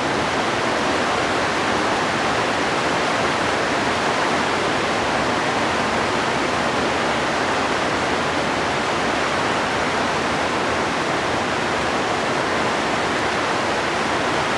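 Rain falling steadily, an even, loud hiss with no break.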